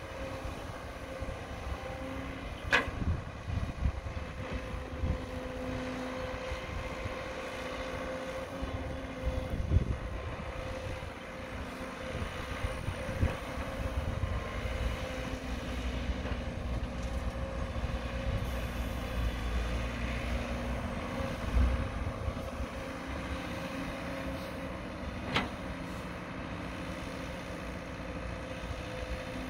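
Caterpillar 312 hydraulic excavator running steadily with an even engine hum while it digs and swings soil, with a couple of sharp knocks, one about three seconds in and one near the end.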